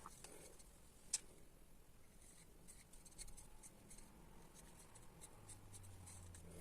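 Near silence with faint handling clicks and ticks, one sharper click about a second in, and a faint low hum near the end.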